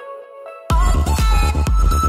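Electronic dance music. The beat drops out at the start, leaving only a few thin held notes, and comes back in with a steady beat under a second in.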